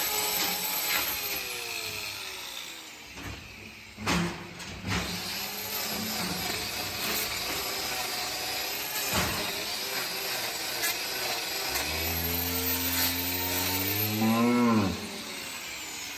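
Cow mooing: one long, low moo about twelve seconds in that lasts around three seconds, rising and then falling in pitch. Before it there are a few sharp knocks, the loudest about four seconds in.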